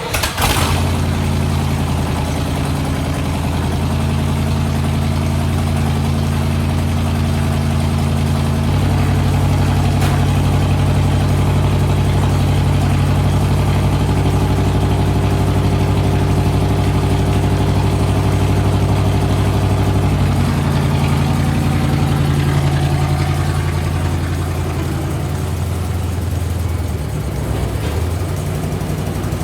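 Squarebody Chevy pickup truck's engine running steadily at low speed, its pitch stepping up and down a few times as the truck is driven and backed in. A sudden loud burst sounds right at the start.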